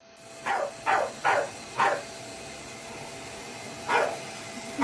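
A dog barking: four quick barks in the first two seconds, then one more about four seconds in.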